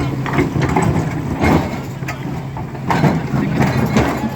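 Diesel engine of a hydraulic crawler excavator running steadily, with several loud, irregular crunches and clanks of metal on rock.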